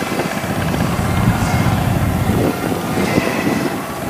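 Diesel engines of rice combine harvesters running steadily, heard from across the field, with a steady high whine over the low engine rumble.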